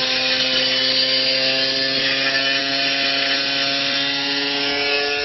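Washing machine running hard, a steady motor whine that slowly drops in pitch under a loud rushing noise.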